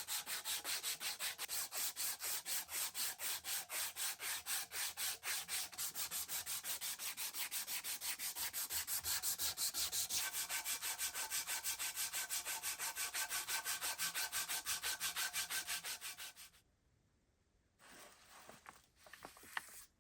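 Hand sanding of a wooden axe handle: quick, even back-and-forth strokes of abrasive on wood, about four or five a second, that stop near the end, followed by a few faint handling noises.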